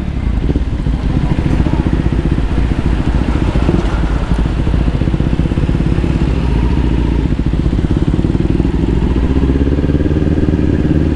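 Kawasaki Ninja 400's 399 cc parallel-twin engine running at low speed while riding in slow traffic, its note rising a little near the end as the throttle opens.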